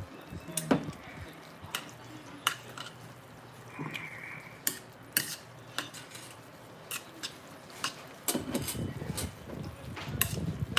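Utensils clicking and clinking against a bowl while noodles are eaten: a dozen or so sharp, separate clicks, with a denser, louder stretch of eating noise near the end.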